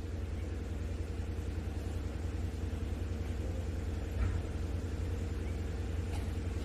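Steady low hum and rumble with a faint steady tone above it, unchanging throughout, with a small brief sound about four seconds in.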